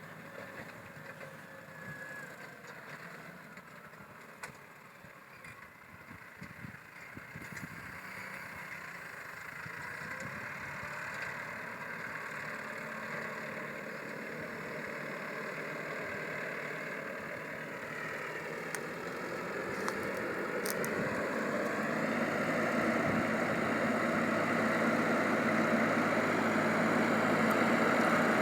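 Claas Arion 540 tractor's diesel engine running steadily while pulling a five-furrow plough. It grows gradually louder as it draws nearer, most of all in the last third.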